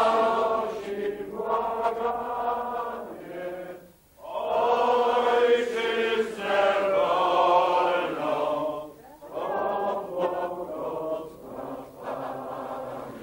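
A hall full of people singing together in slow, sustained phrases, with short breaks for breath between the lines.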